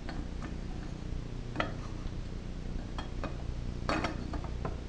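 A flywheel holder tool clicking and knocking against the fins of a small engine's flywheel as it is set in place: a few scattered light clicks, with a small cluster of them about four seconds in.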